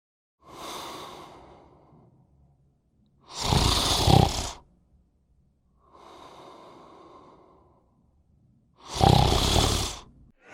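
Slow, heavy breathing: softer breaths alternating with two loud, rasping ones, a few seconds apart.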